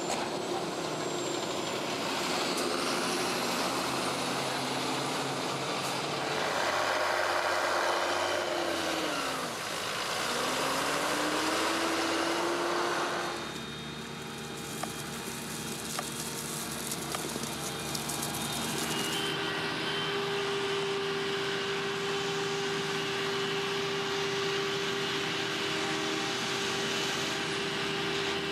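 Diesel engines of large farm tractors and a Krone Big X self-propelled forage harvester running while chopping maize for silage. About nine seconds in the engine pitch drops and then climbs back up, and from about twenty seconds on a steady whine sits over the engine noise.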